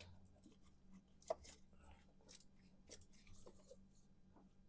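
Faint, scattered light clicks and ticks of a hand wrench working on the engine as the distributor hold-down bolt is snugged down, with one sharper click just over a second in.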